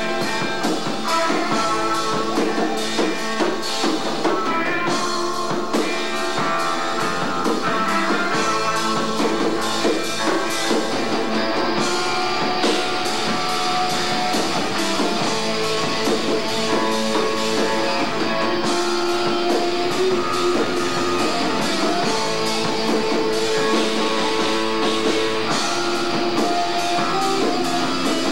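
Live rock band playing loud and unbroken, with electric guitars, bass and a drum kit, heard through a camcorder microphone in the room.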